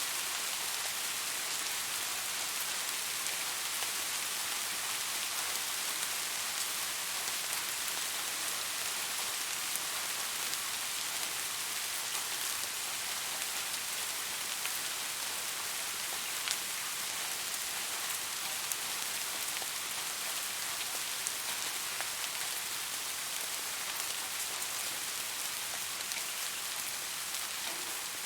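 Steady rain falling and pattering on surfaces, an even hiss with scattered individual drop ticks.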